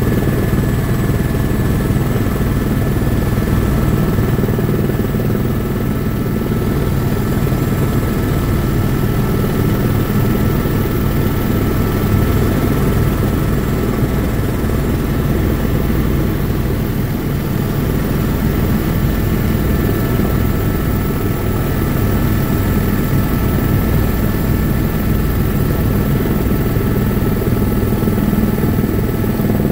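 Helicopter in flight: a steady, loud rotor and engine drone, with faint steady whines above it that do not change.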